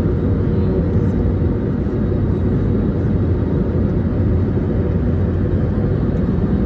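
Airliner cabin noise on descent: engines and rushing airflow heard from a window seat as a steady, even low rumble.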